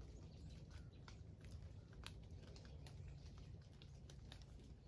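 Near-quiet outdoor ambience: faint, irregular ticks and taps, a few each second, over a low steady rumble.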